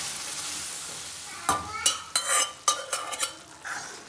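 Hot masala in a kadai sizzling as the wet boiled chana dal and spinach go in, the hiss dying away over the first second or so. Then a steel spoon stirs the dal and clinks sharply against the pan several times.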